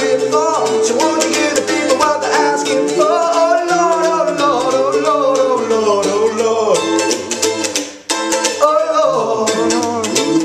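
Mandolin strummed in a steady rhythm, with a voice holding a wordless sung line over it for the first part. The playing breaks off for a moment about eight seconds in, then picks up again.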